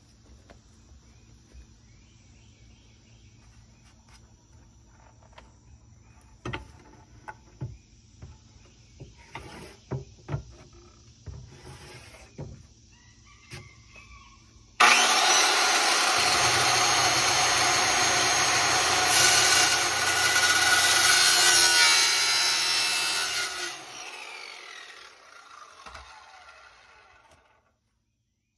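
A few faint knocks and handling sounds, then about fifteen seconds in a circular saw starts suddenly and runs loudly for about nine seconds, cutting a strip off pine paneling. Its blade is mounted backwards (set up for cutting tin), so it cuts poorly. It then spins down and fades out over a few seconds.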